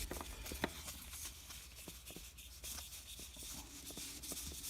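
Paper-stock baseball cards being handled, sliding and rubbing against one another, with faint rustling and scattered light clicks.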